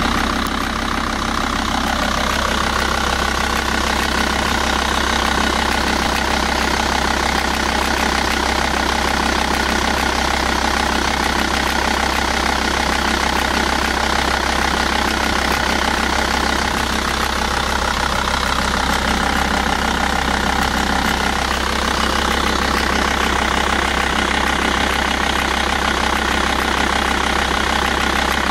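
Volvo V70's VAG 2.5 TDI five-cylinder diesel running steadily with a rattling noise, which the owner traces to a failing timing belt tensioner rather than the vacuum pump.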